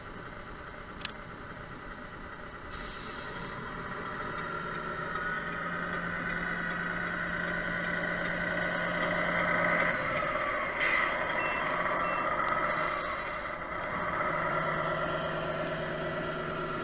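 1/14-scale Tamiya Scania RC truck running: a steady mechanical whine that builds over the first several seconds, with its pitch sweeping down and back up near the middle.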